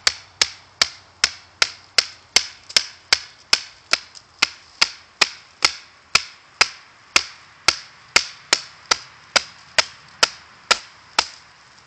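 Light, evenly paced taps of a wooden baton on the spine of a Habilis Bushtool knife, about two and a half a second, driving the blade down to split a stick of wood (batoning). The tapping stops shortly before the end.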